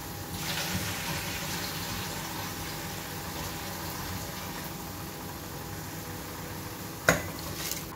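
Pot of water with rice at a rolling boil, bubbling steadily. A single short knock about seven seconds in.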